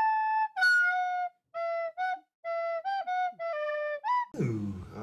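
Background music: a solo flute-like melody of short, clear notes with brief gaps between them. It cuts off about four seconds in to a low, noisy room sound.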